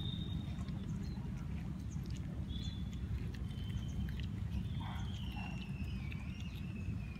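A puppy eating boiled rice from a steel bowl: small wet chewing and smacking clicks over a steady low rumble. Thin, high whistle-like tones come and go, with one long, slowly falling note near the end.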